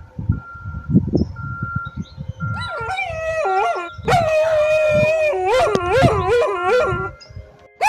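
A pack of canines howling, several voices overlapping and gliding up and down, beginning about two seconds in. Over it, a truck's reverse-warning beeper sounds a steady high beep about once a second. Low rumbling noise comes before the howls start.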